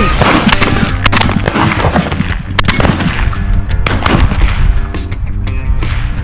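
Several shotgun shots at irregular intervals over rock background music.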